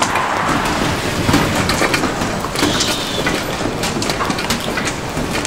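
Transformers-style sound effects of a kitchen transforming: a dense, continuous clatter of mechanical clicks, clanks and crunches over a rumbling noise.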